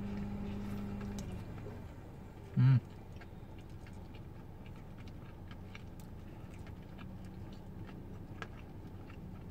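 A person chewing a mouthful of burger, with faint wet mouth clicks and one short hummed 'mm' about two and a half seconds in. Under it runs the low steady hum of the car, which falls quieter about a second in.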